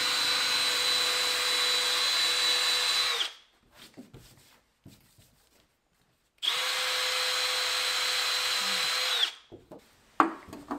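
Cordless drill spinning a rubber eraser wheel against the truck's door paint, stripping leftover badge adhesive. It runs twice at a steady speed, about four seconds and then about three, with a quiet pause between. A sharp click comes near the end.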